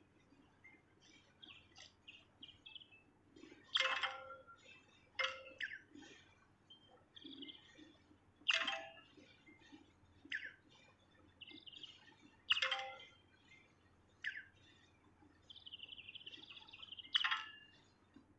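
Songbird calling in loud, sharp single notes a few seconds apart, with softer chips and clicks between them and a brief buzzy trill near the end.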